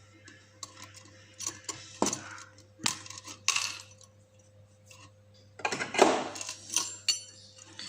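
Small metal lock-picking tools and a lock being handled, clinking and clicking in a string of separate knocks, with a louder cluster of rattles about six seconds in.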